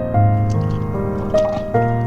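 Instrumental background music: held melodic notes over a deep bass note, the melody stepping to a new note every half second or so.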